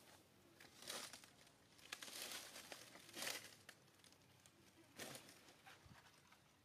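Faint rustling and crackling of dry leaves in about four short bursts, the loudest about three seconds in.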